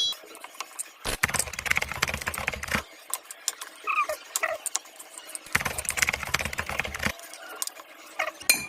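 Kitchen cookware handling: two stretches of stirring and scraping with small clinks, each about a second and a half long, with light ticks between them.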